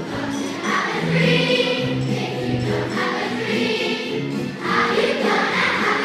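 A choir singing in a medley, with instrumental accompaniment under the voices.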